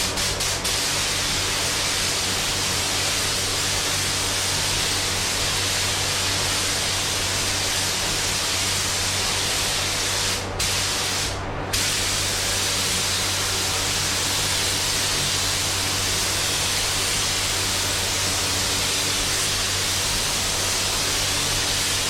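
Compressed-air paint spray gun hissing steadily as a panel is sprayed, with a steady low hum underneath. The hiss cuts out briefly twice about halfway through, as the trigger is let go between passes.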